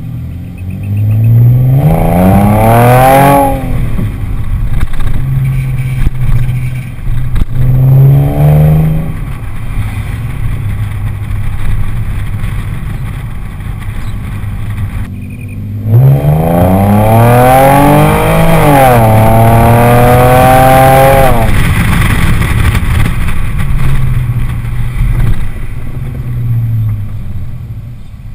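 Exhaust of a 2006 Audi A6 3.2 Quattro's 3.2-litre V6 running with its mufflers removed (cats and resonators still in place), heard from beside the tailpipes through a cased action camera. It pulls hard and climbs in pitch a few seconds in, runs steadier between, then pulls again over several seconds after halfway, the pitch dropping and climbing again as it shifts up, before easing off.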